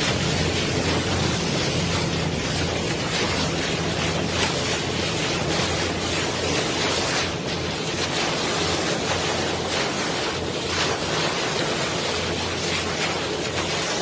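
Wind buffeting the microphone on the open deck of a boat under way, over the steady low hum of the boat's engine and the wash of the sea.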